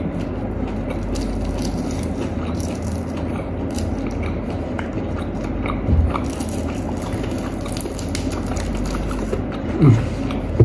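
Close-miked chewing and biting of crispy fried chicken wing, with faint scattered crunches. A brief low thump comes about halfway through, and a short falling pitched sound a little before the end.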